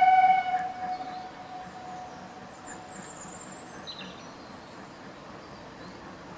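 A steam locomotive whistle holds one steady note, then fades away over about the first two seconds. After it comes faint, steady open-air background with a few short bird chirps.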